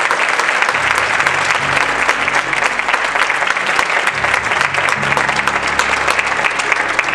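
Audience clapping, a dense steady applause, with music playing underneath in slow low notes.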